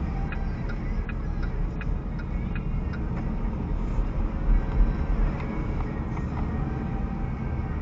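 Road and engine rumble inside a moving car, picked up by the dashcam's own microphone. A light regular ticking, a little more than one tick a second, runs through the first three seconds and then stops.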